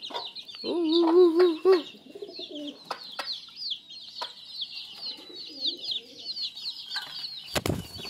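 Chickens and pigeons feeding, with constant high, rapid cheeping throughout. About a second in comes one louder, wavering call of about a second, and there are a few sharp knocks later on.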